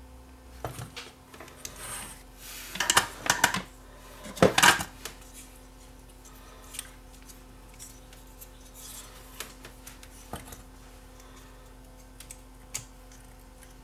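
Hands handling and desoldering a small switch-mode power-supply circuit board: scattered clicks, taps and scraping, with louder clusters of clicks about three and four and a half seconds in.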